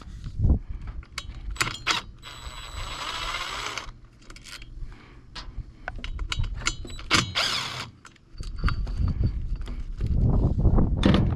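Hand tools and small metal engine parts clicking and scraping as the ignition coil is unbolted and pulled off a small Stihl trimmer engine. There is a scraping rattle lasting about a second and a half a couple of seconds in, another short one about seven seconds in, and a low rumbling handling noise near the end.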